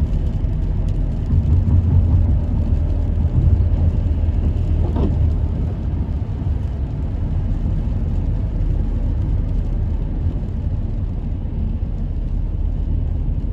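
Steady low rumble of a car's engine and tyres heard from inside the cabin while driving, with a faint brief rising-and-falling tone about five seconds in.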